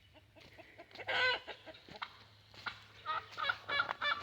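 Farmyard poultry calling: a loud chicken squawk about a second in, then a run of short repeated calls, about three a second, near the end.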